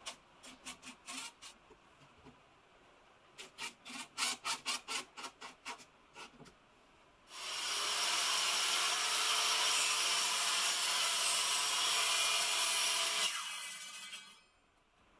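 A cordless driver running in short bursts, driving screws into wood. It is followed by a corded circular saw running steadily through a crosscut for about six seconds, then its blade winding down and stopping.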